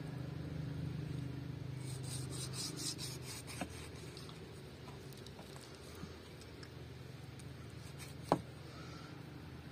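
Large knife scraping and slitting a raw sheep's trotter on a wooden chopping block, cutting out the fatty glands between the toes to clean it for cooking. There is a quick run of short scraping strokes about two seconds in, and a single sharp knock of the blade on the block near the end, over a steady low hum.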